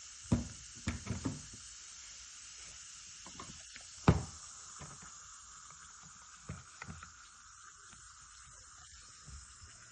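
A handful of short, dull knocks over a steady high hiss: several close together in the first second and a half, the loudest about four seconds in, and a few lighter ones near seven seconds.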